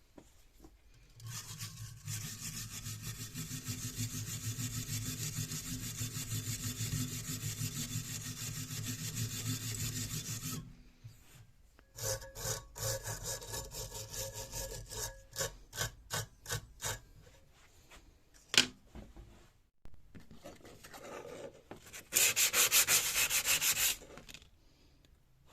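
Hand rubbing with an abrasive on an old chisel under restoration. A long run of rapid back-and-forth strokes lasts about ten seconds, then come slower separate strokes with a faint ring. After that there is one sharp click and a final short burst of fast strokes.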